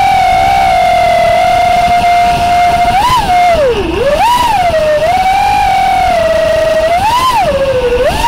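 FPV racing quadcopter's electric motors and propellers whining. The pitch holds steady for about three seconds, then swoops up and down several times as the motor speed changes.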